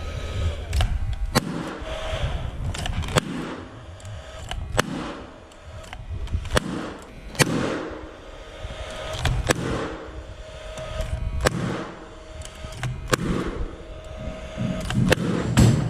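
Paslode cordless gas-powered finish nailer firing nails into timber: sharp shots at irregular intervals, roughly one every second or two.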